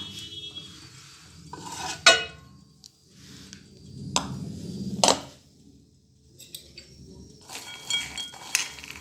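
Microwave door opened and a bowl of roasted peanuts taken out and set down: a few sharp clicks and clinks of dish handling, the loudest about two seconds in, with more clinks near the end.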